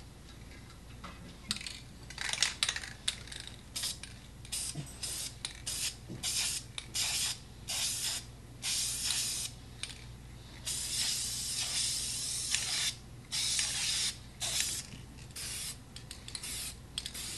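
Aerosol can of spray paint hissing in a string of short bursts, starting about a second and a half in, with one longer spray of about two seconds near the middle.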